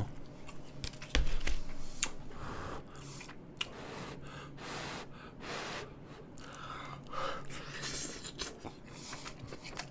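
Close-miked chewing of a mouthful of grilled thin-sliced beef brisket (chadolbaegi), with wet mouth clicks and breaths between bites. A low thump about a second in.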